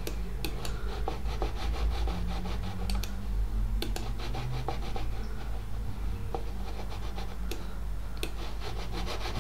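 A computer mouse being slid and dragged across a desk, rubbing and scratching, with scattered light clicks, over a steady low hum.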